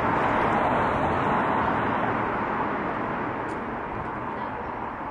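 Road traffic: a passing vehicle's noise swells in the first couple of seconds, then slowly fades away.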